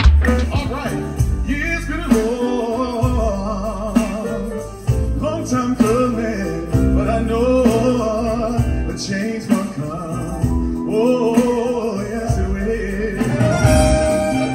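A vocalist singing a melody over a band's accompaniment.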